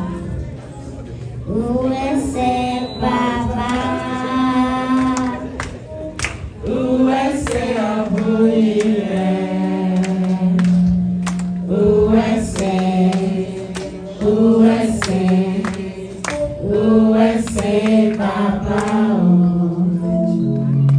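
A group of voices singing together in chorus, with sharp beats at uneven intervals.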